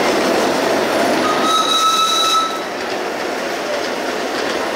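Miniature ride-on steam train running along its track with passengers aboard: a steady rush of running noise, with a high steady tone for about a second midway. After that the sound drops as the train draws away.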